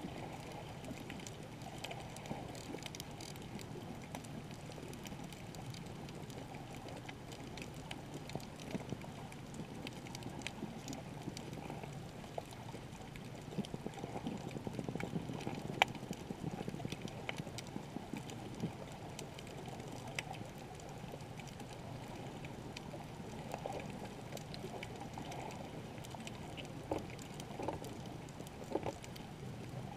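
Underwater reef ambience heard through a camera's waterproof housing: a steady, muffled rushing with scattered sharp clicks, one clearly louder click about halfway through.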